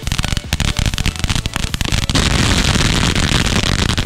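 Ground firework going off: a rapid string of crackling pops that about halfway through turns into a dense, continuous crackle of sparks, which cuts off suddenly at the end.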